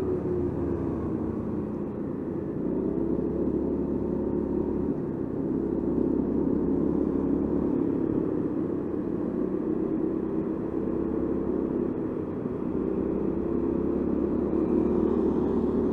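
Honda Forza 350 scooter's 330 cc single-cylinder engine running at moderate, fairly steady speed, heard from the rider's seat. The engine note holds fairly even and begins to climb near the end as the throttle opens.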